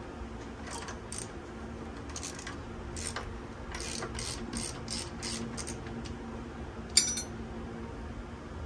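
Hand ratchet clicking in short, uneven runs as a bolt on a Harley-Davidson's shift linkage is turned, with one sharper metallic clink about seven seconds in. A faint steady hum runs underneath.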